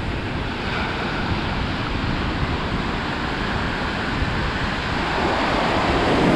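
Atlantic surf breaking and washing on the beach, with wind buffeting the microphone; the surf swells louder about five seconds in.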